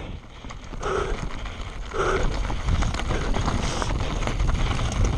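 Scott Spark full-suspension mountain bike descending a rocky dirt trail at speed: tyres crunching and clattering over loose stones, with the chain and frame rattling through rapid knocks and wind on the microphone. It is quieter for about the first second, then runs on as dense clatter.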